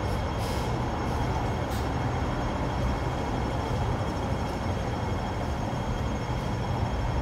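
Hong Kong double-decker tram running along its rails: a steady rumble with a thin steady whine above it, and a few faint clicks in the first two seconds.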